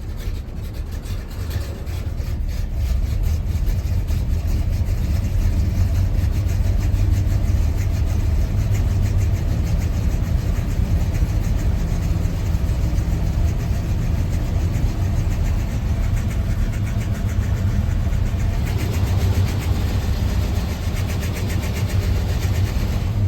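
1986 Chevrolet C10 pickup's engine idling roughly on a cold start, its pulsing low running getting louder over the first few seconds. A hiss joins in over the last few seconds.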